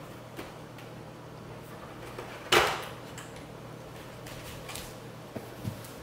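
Plastic air purifier housing being handled as its perforated outer shell is pulled off the filter: a few light clicks and one loud plastic clack about two and a half seconds in, over a low steady hum.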